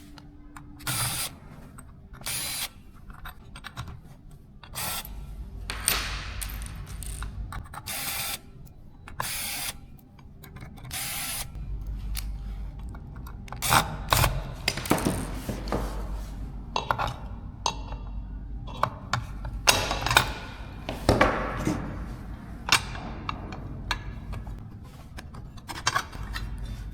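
Work noise from opening up a compact laptop to reach its RAM and SSD: a run of short whirring bursts, as from a small screwdriver turning out screws, with clicks and scrapes of handled parts in between.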